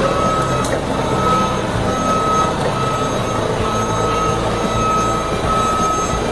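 Forklift reversing alarm beeping steadily, a little more than one beep a second, over the rumble of the forklift's engine running.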